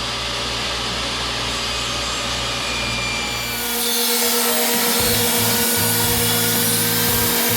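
A power saw running and cutting through an edge-glued pine board; about three and a half seconds in, the cutting noise turns brighter and harsher.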